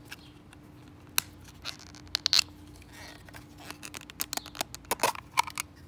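Scattered sharp clicks, taps and short scrapes of a small acrylic display case being handled, with the loudest clicks about two seconds in and near the end.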